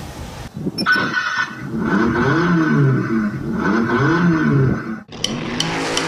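Electronic engine start-and-rev sound effect played through the speaker of a kids' electric ride-on buggy when its start button is pressed, the pitch rising and falling twice like an engine being revved. It breaks off about five seconds in, followed by a few sharp clicks.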